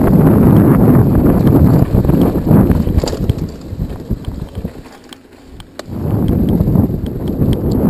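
Wind buffeting a helmet-mounted action camera's microphone as a mountain bike rides down a dirt singletrack, with rattle from the tyres and bike. The wind noise fades about halfway through, as the bike slows, leaving scattered light clicks, then builds up again near the end.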